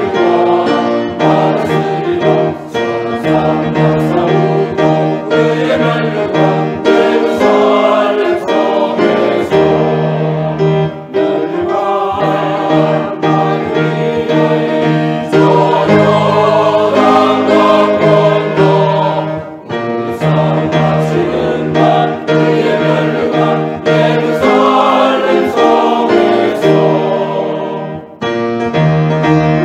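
Mixed church choir of men's and women's voices singing a hymn anthem in harmony, with piano accompaniment.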